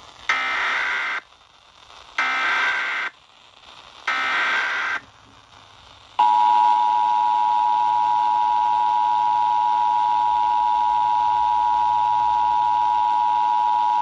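Emergency Alert System required monthly test played through a small portable radio's speaker: three one-second bursts of the SAME digital header data, each a harsh warbling buzz, then from about six seconds in the steady two-tone EAS attention signal (853 and 960 Hz), which runs on unchanged.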